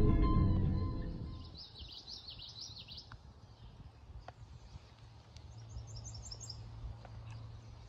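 Music fading out in the first second or so, then songbirds: a warbling song about a second and a half in and a quick run of short, high chirps around the middle, over a faint steady outdoor background.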